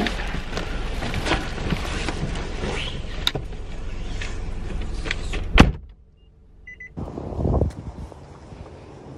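Rustling of a delivery bag and clunks of someone climbing out of a car, ending with a car door shutting with a sharp thump about five and a half seconds in. After a brief hush, wind on the microphone and footsteps outdoors.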